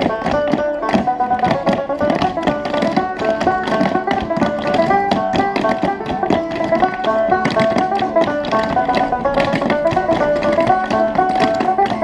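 Clog dancers' shoes tapping out quick, dense rhythms on a dance board, over a tune played on a plucked stringed instrument.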